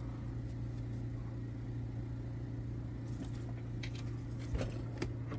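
Steady low mechanical hum from a fan or motor in the room, with a few faint light taps in the second half as test spoons are handled and set down on the bench.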